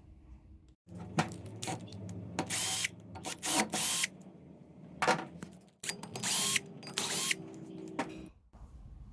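A power tool running in several short half-second bursts over a steady low hum, with scattered clicks and knocks.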